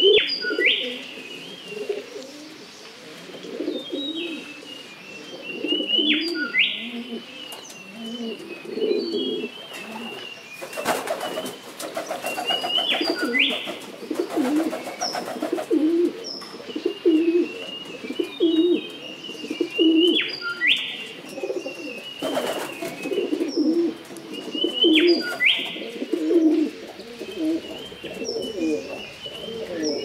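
Wood pigeon cooing in repeated low phrases. Another small bird sings a short, high phrase every several seconds, and a brief rushing noise passes through the middle.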